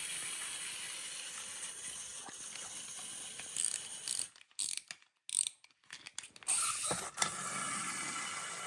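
Small wind-up toy's clockwork motor whirring steadily as its spring unwinds. About four seconds in it breaks off into a couple of seconds of stops and clicks, then runs steadily again.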